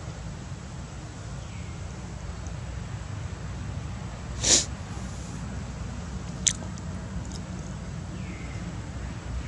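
A long-tailed macaque gives one short, sharp burst of breath about halfway through, like a sneeze or snort, over a steady low rumble. A faint sharp click follows about two seconds later.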